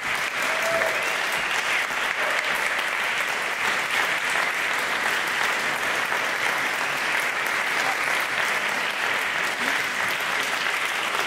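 Audience applauding: many hands clapping in a steady, dense patter that neither builds nor fades.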